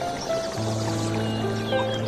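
Instrumental background music with held notes; a low bass note comes in about half a second in.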